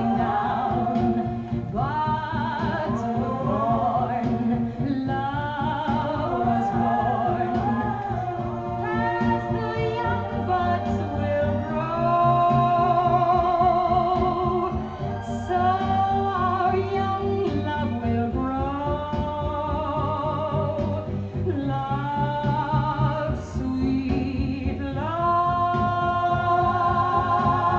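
Late-1950s orchestral pop music played from a 78 rpm record: a lush accompaniment of sustained, wavering tones over a steady bass, with singing.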